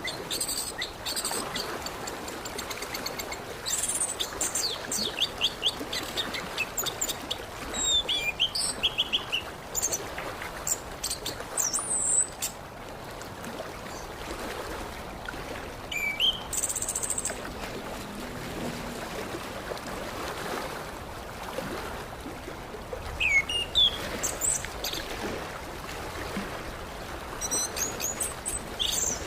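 Orange-headed thrush (anis kembang) singing in bursts of quick high whistled and chattering notes, broken by pauses of several seconds, over a steady background hiss.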